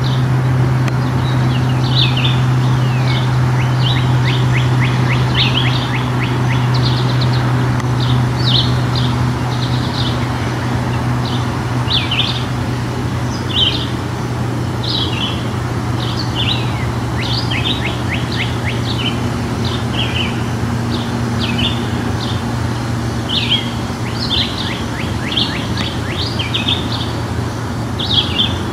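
Several songbirds chirping and singing: short high chirps throughout, with a few runs of quick, falling notes. A steady low hum runs underneath.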